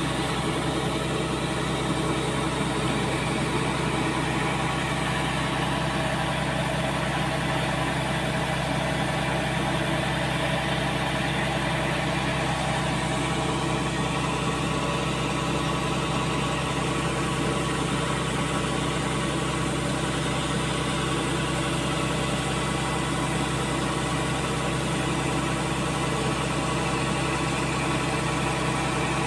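Kubota DC-70G Plus combine harvester's diesel engine and grain unloading auger running steadily while threshed rice grain streams from the spout.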